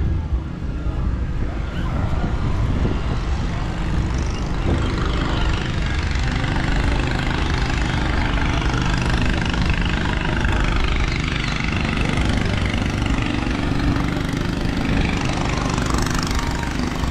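Steady low engine rumble, like a vehicle idling, under a continuous hubbub of street noise.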